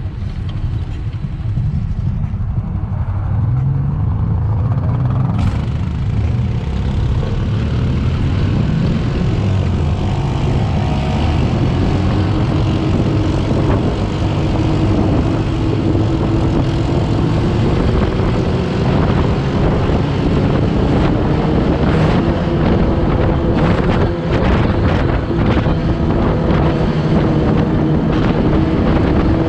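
Open dune buggy's engine running as the buggy pulls away and accelerates on pavement, its pitch rising slowly as it picks up speed. Short bursts of wind buffeting the microphone come in the last third.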